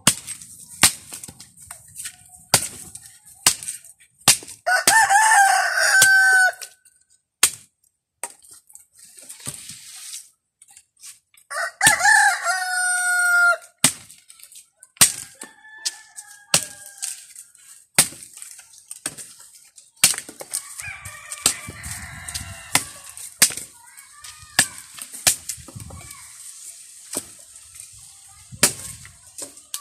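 Machete chopping a branch for firewood, sharp strikes about once a second. A rooster crows loudly twice, about five and twelve seconds in, and chickens cluck faintly later.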